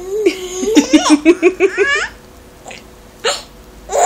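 Baby laughing: a quick run of rhythmic giggles, about six a second, starting under a second in and lasting about a second, then a short breathy intake near the end.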